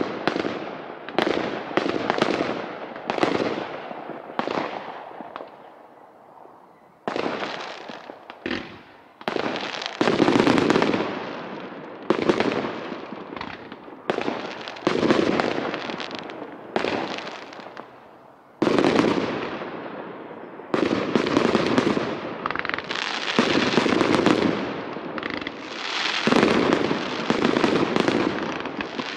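Aerial firework shells bursting one after another, about one bang a second, each fading away, with a short lull about five seconds in before the bangs resume.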